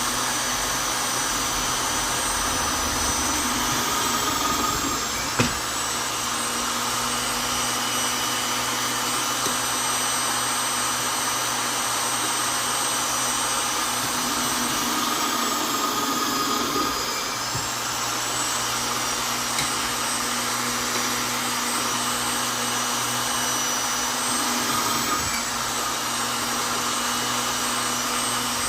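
Vonder electric drill running continuously with a steady motor whine. Its pitch sags briefly about five seconds in and again around sixteen seconds, and there is a sharp click near the first sag.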